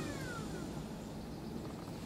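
Hand-held electric starter winding down with a faint falling whine in the first half second or so, then a quiet lull with a low outdoor background.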